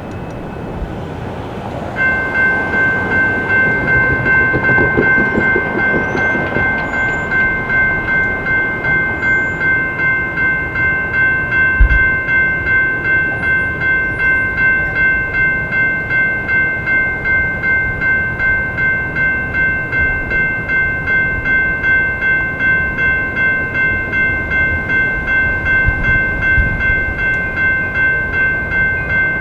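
Railroad crossing warning bell starting about two seconds in and ringing on at a quick, even pulse, signalling that a train is approaching the crossing. A single thump sounds about twelve seconds in.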